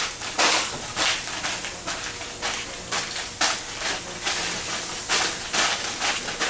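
Spaghetti noodles and eggs sizzling in a hot frying pan, with a loud hiss surging up every half second or so.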